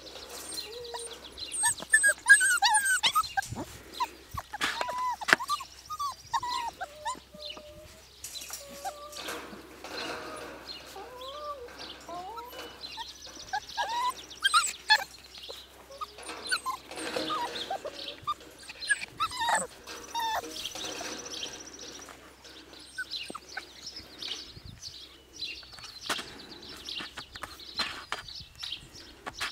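Four-week-old Siberian Husky puppies giving short, high yips and whimpers as they play, in scattered bursts of squeaky cries that bend up and down in pitch, loudest about two to three seconds in and again around the middle.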